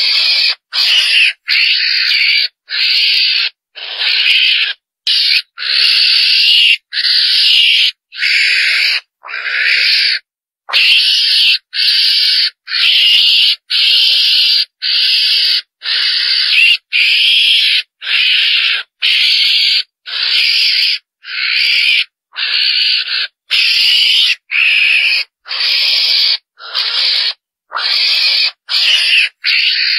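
Lure call of the chồn đèn, the small wild carnivore trapped in Vietnam's highlands: a harsh, hissing squeal repeated just over once a second, each call about half a second long with short gaps between.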